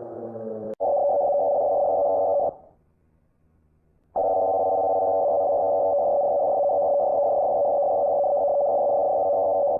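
Emergency alert tone: a falling multi-pitched tone fades out, then after a click a steady electronic alarm tone sounds for about two seconds, stops for about a second and a half, and sounds again for about five and a half seconds.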